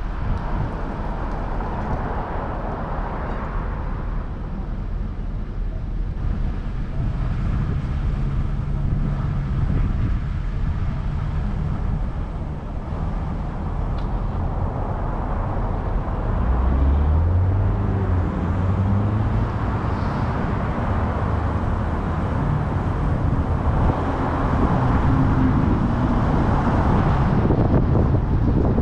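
Road traffic on a busy street: cars passing one after another, their tyre hiss swelling and fading several times over a steady low rumble. About halfway through, a vehicle's engine note rises in pitch as it goes by.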